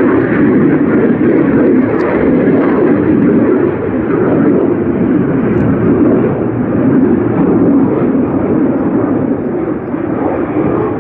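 Military fighter jet engine noise: a loud, steady rushing roar, strongest in the low-mid range, easing slightly near the end.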